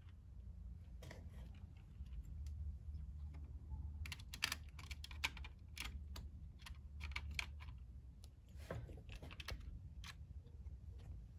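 Irregular small clicks and taps of HO scale plastic well-car units being pushed together and coupled on model railroad track, most of them bunched in the middle of the stretch, over a low steady hum.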